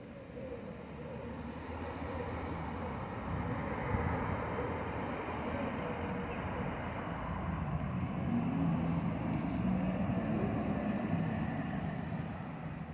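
City street traffic going by, growing louder over the first few seconds. About eight seconds in, a low vehicle engine hum rises a little in pitch and then holds steady until near the end.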